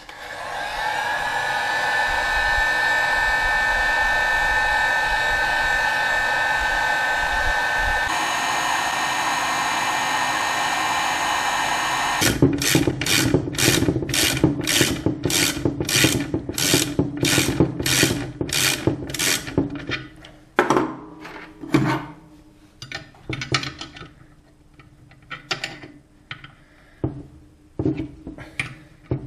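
Electric heat gun blowing steadily with a whine as it heats the aluminium engine case around a seized stud, switched off about twelve seconds in. A ratchet then turns the stud extractor in regular strokes, about two a second, for some seven seconds, followed by scattered clicks and knocks of tools on the case.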